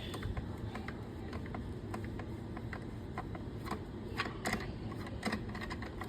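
Screwdriver turning a Phillips screw out of an ebike's cover, making irregular small clicks and ticks.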